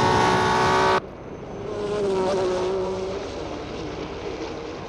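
A Formula One racing car engine at high revs, loud and steady, cut off abruptly about a second in. Then another racing car passes more faintly, its engine note dropping slightly in pitch.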